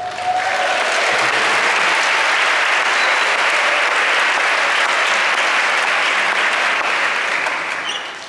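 Large concert-hall audience applauding: dense, steady clapping that fades out near the end.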